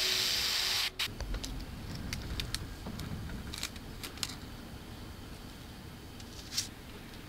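A short hiss of paint spray that cuts off sharply about a second in, followed by scattered small clicks and taps.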